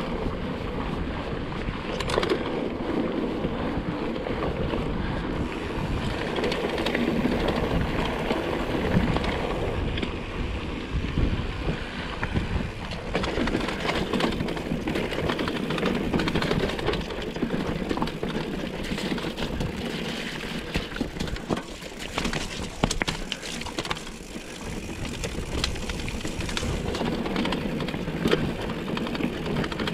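Mountain bike descending a mountain trail: steady tyre and wind noise on the microphone, with frequent sharp clicks and knocks from the bike rattling over the rough ground.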